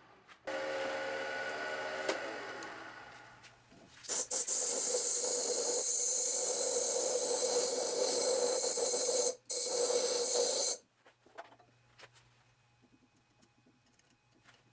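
Compressed air hissing from an air-hose blow nozzle, clearing wood shavings out of the inside of a hollowed red oak vessel: two long blasts with a brief break near the end. Before it, the lathe's steady hum fades away over the first few seconds as it spins down.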